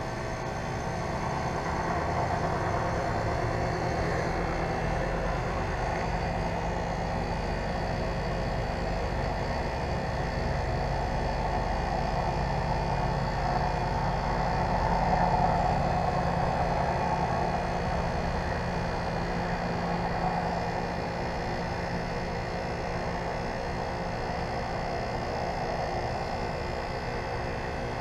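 Lennox Merit Series 3-ton heat pump outdoor unit running: a steady hum with several fixed tones over a rushing noise, which swells briefly about halfway through.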